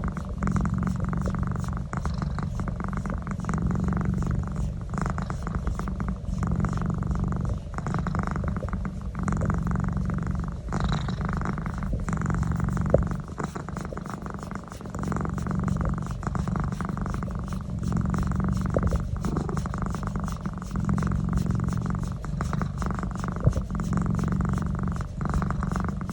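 Domestic cat purring loudly and continuously during a neck massage, the purr swelling and easing with each breath in and out.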